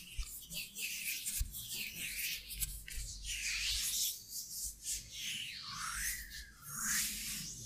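Close-up ASMR hand and mouth sounds into a microphone: soft rubbing of fingers and palms around the mouth and face, and a breathy hiss that rises and falls.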